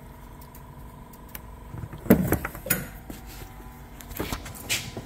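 A few irregular metallic knocks and clinks as an injector fuel rail and hand tools are handled on a workbench, over a steady low hum.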